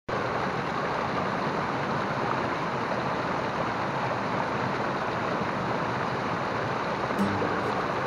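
Small waterfall rushing steadily over boulders into a pool.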